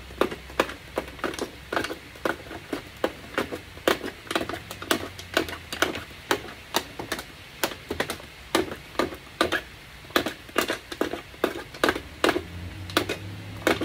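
A small screwdriver's point punching holes one after another in thin aluminium cake-pan metal: an irregular run of sharp clicks, about two or three a second.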